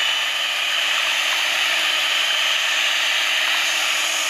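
Electric hand mixer running steadily at speed with a high motor whine, its beaters whisking a thin mango-and-cream custard mixture in a glass bowl.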